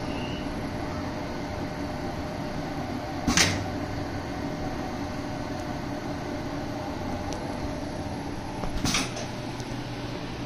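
Assembleon Topaz-X II pick-and-place machine running: a steady mechanical hum with a few held tones. Two sharp knocks break through, about three seconds in and again near nine seconds.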